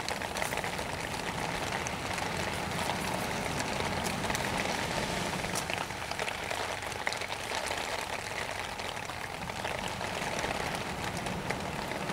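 Meat sizzling over a camp fire, a steady hiss with small crackles and ticks, with light rain pattering.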